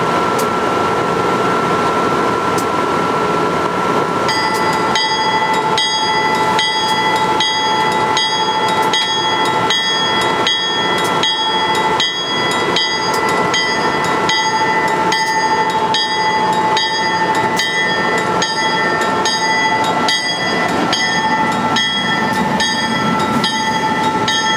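Amtrak AEM-7 electric locomotive's bell ringing in a steady, even rhythm, starting about four seconds in, as the train starts to move, over a steady whine.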